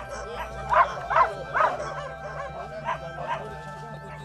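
A dog barking in short quick series: three loud barks about a second in, then two fainter ones near the three-second mark.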